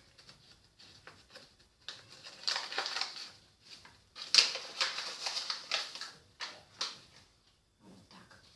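Spells of rustling with small clicks and scrapes as dried thyme is spooned out of its herb packet.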